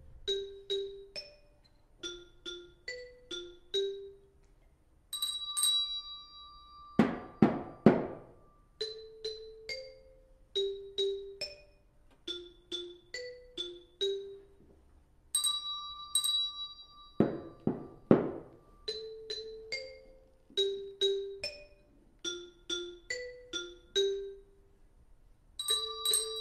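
A simple children's composition on tuned mallet percussion: short struck notes in small groups, a held bell-like ring opening each phrase, and a quick burst of clattering strikes twice. The phrase repeats about every ten seconds.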